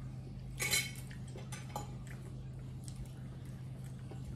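Knife and fork scraping and clinking on a plate while food is cut, loudest about half a second in, then a few lighter clicks. A steady low hum runs underneath.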